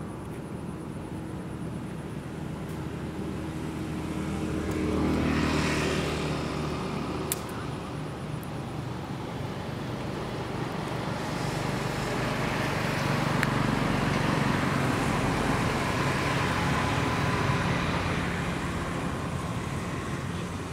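Passing engine noise: one vehicle swells to a peak about five seconds in and fades away, then a longer, slower swell builds through the middle and dies down near the end.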